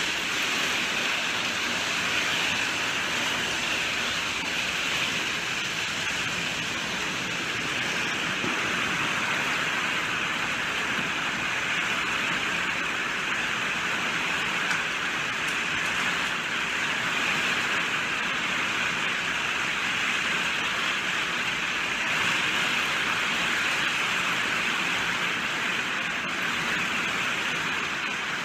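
Steady heavy rainfall, an even hiss of rain falling without a break.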